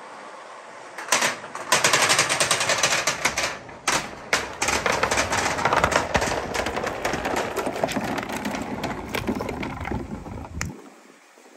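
A stream of many balls rolling and clattering down a wooden marble-run chute in a rapid, dense rattle. It starts about a second in and dies away near the end.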